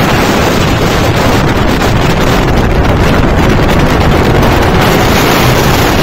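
Storm wind buffeting the phone's microphone in a steady, heavy rush, over heavy sea surf breaking on the rocks below.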